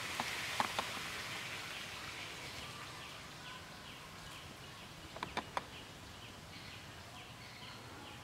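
Outdoor insect and bird ambience: a steady buzz with a short chirp repeating about three times a second from about halfway through, and a few sharp clicks near the start and three more about five seconds in.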